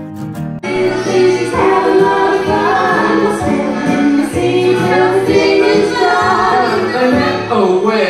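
Guitar background music gives way suddenly, about half a second in, to a group of women's and children's voices singing together.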